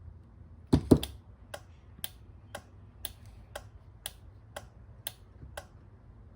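Two sharp knocks, then a car alarm control unit's relay clicking steadily about twice a second for around four seconds before stopping: the alarm going off after its vibration sensor is tapped.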